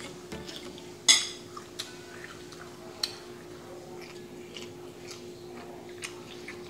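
A metal fork set down on a ceramic dinner plate: one sharp ringing clink about a second in, then lighter taps about two seconds later, over a steady low hum.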